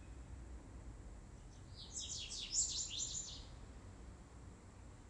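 A small bird twittering: a quick run of high chirps about two seconds in, lasting a second and a half, over a faint low hum.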